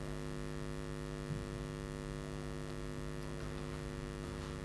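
Steady electrical mains hum: a continuous buzz made of several evenly spaced tones, unchanging throughout.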